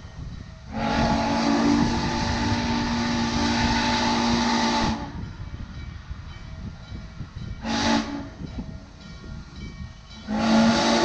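Norfolk & Western 611 steam locomotive's chime whistle blowing a long blast, then a short one, then a long one that starts near the end, several steady notes sounding together: the pattern of a grade-crossing signal. Between blasts the locomotive is heard running more quietly.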